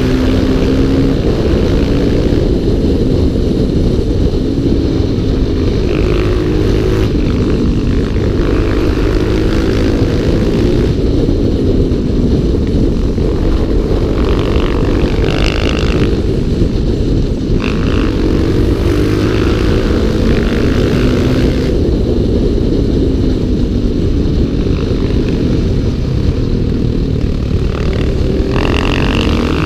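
Motorcycle engine heard from an on-board camera, its revs rising and falling repeatedly as the bike rides through a run of bends, with a heavy rumble of wind over the microphone.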